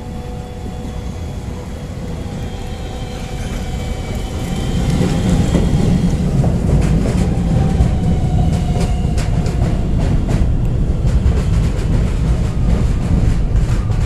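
New York City subway train on the N line coming into an elevated station and running alongside the platform. The rumble grows louder over the first five seconds and then holds, under a motor whine that falls slowly in pitch. From about six seconds in, wheel clicks rattle over the rail joints.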